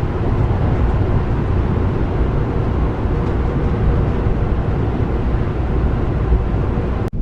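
Steady low rumble of a bus's engine and tyres on the road, heard from inside the passenger cabin. It cuts off suddenly near the end.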